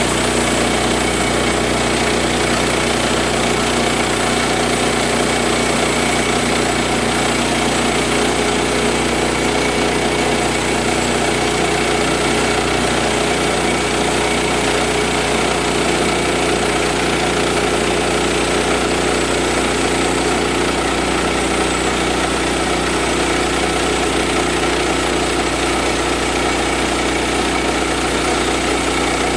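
Woodland 122 portable sawmill's gas engine running steadily as the mill makes a cut, ripping a one-inch board off a squared log.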